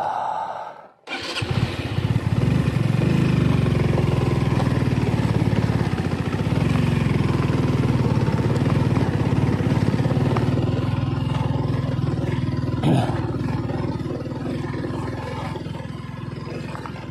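Motorcycle engine running steadily under load as the bike climbs a steep, rocky dirt track. It comes in about a second in after a brief break, and there is one short knock about thirteen seconds in.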